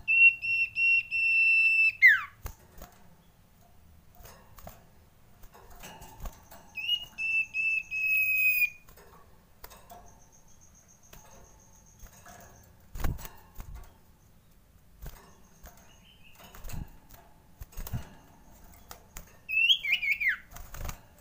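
Common iora calling: a long, steady high whistle that drops sharply at its end, a second, shorter whistle about seven seconds in, and a wavering whistled call near the end. Faint chattering notes and a few soft thumps come in between.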